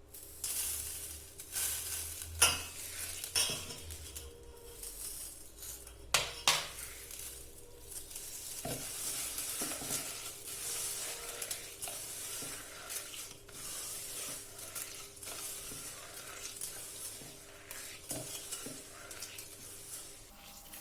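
Ripe banana being mashed and mixed with sugar in a bowl: steady squishing and scraping, with a few sharp knocks of the utensil against the bowl in the first seven seconds.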